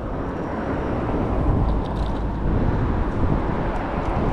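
Wind rumbling on the microphone with road noise during a ride on a folding e-bike, with a few faint ticks.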